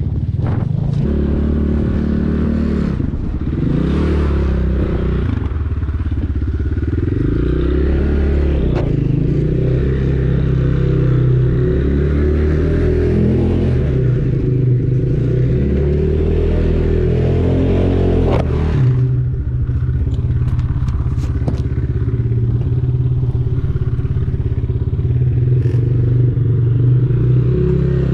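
KAYO K4 enduro motorcycle's single-cylinder 172FMM engine running, its revs rising and falling, then holding steadier for the last third, with scattered clatter and clicks.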